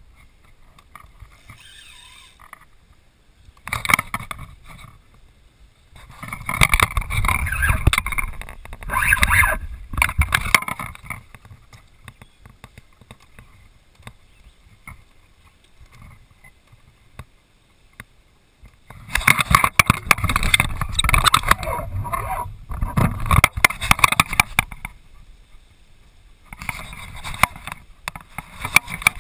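Paddling and movement in a plastic sit-on-top kayak: irregular bursts of paddle splashing and knocks and rubbing against the hull, each lasting a second or few, with quieter stretches between.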